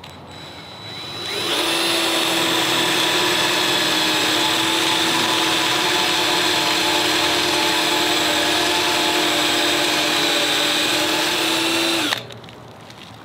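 Electric power drill spinning up about a second in, then running at a steady pitch for about ten seconds as it drills a hole right through a gate hinge bracket, and stopping abruptly.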